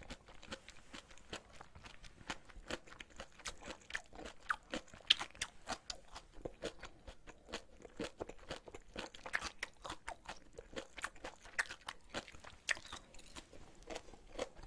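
Close-miked chewing of ramen noodles with bean sprouts: many small crunches and mouth clicks at an uneven pace.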